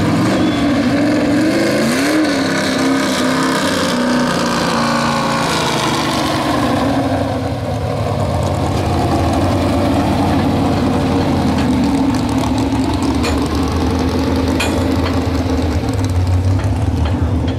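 Super stock pulling truck engine running loud, its pitch rising and falling in the first few seconds, then holding steady.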